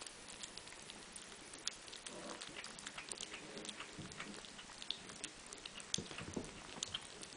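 Two kittens eating wet cat food from a plate: quick, irregular little wet clicks of chewing and licking, with now and then a duller knock.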